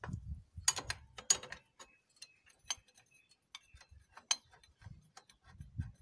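Irregular metallic clicks and a few duller knocks from a socket wrench working the front variator pulley nut on a TVS Ntorq 125's belt transmission as the nut is undone.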